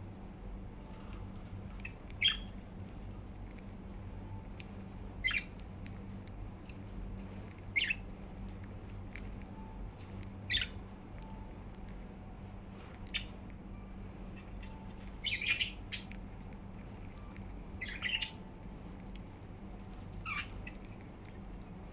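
Budgerigars giving short, sharp chirps, one about every two to three seconds, over a steady low hum.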